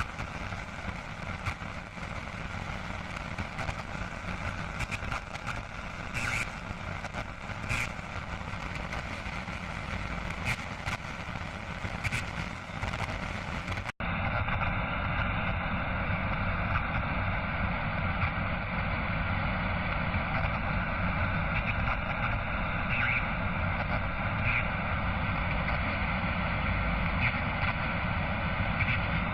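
Steady vehicle-like rumbling noise in two separate recordings, with a sudden cut about halfway through. The first has a few brief crackles; the second is steadier and duller.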